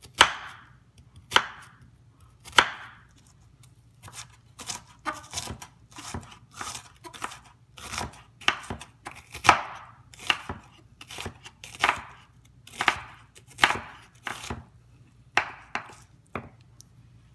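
Kitchen knife chopping an onion on a wooden cutting board: a few spaced cuts at first, then a quicker, uneven run of blade strikes on the board, about two a second, stopping shortly before the end.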